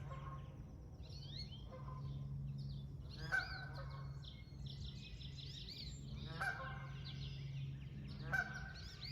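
Canada geese honking, several loud honks among a run of softer calls, with higher chirping calls between them. A steady low hum runs underneath.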